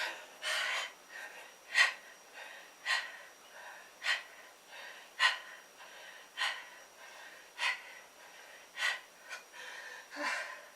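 A man breathing hard and fast, one sharp breath roughly every second, out of breath from a strenuous set of push-ups.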